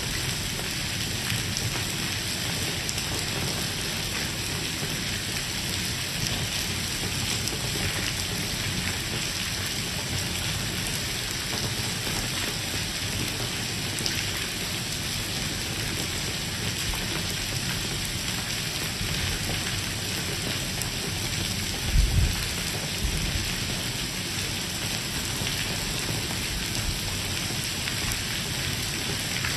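Heavy rain falling steadily on a stone-paved street. A brief low thump comes about three-quarters of the way through.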